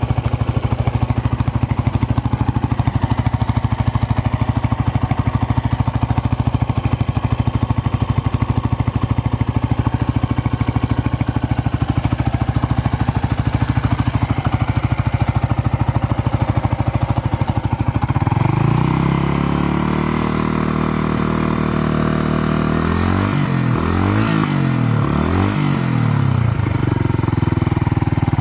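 Suzuki Grasstracker's single-cylinder engine running through an aftermarket SuperTrapp full exhaust. It idles steadily, then is revved up and held about two-thirds of the way through, with three quick throttle blips before it settles back. No abnormal noises, according to the seller.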